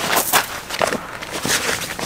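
A woven cotton blanket being spread and smoothed by hand over a tent floor laid on gravel: a series of short fabric rustles and swishes, with crunching from the gravel beneath as he kneels on it.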